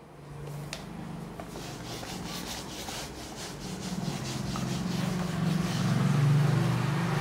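Handheld whiteboard eraser scrubbing back and forth across a whiteboard in quick, repeated strokes, getting louder in the second half as the board is wiped clean.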